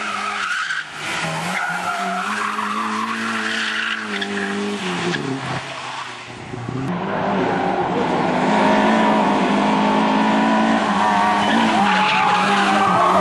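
Lada rally cars' four-cylinder engines run hard through a tight bend. The first car's engine drops in revs and fades about five seconds in. From about seven seconds the next car's engine comes in louder and holds at high revs.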